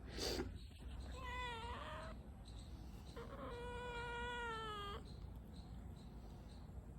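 Domestic cat meowing twice: a short meow that turns up at the end, then a longer, drawn-out meow of about two seconds. A brief noisy puff comes just before them.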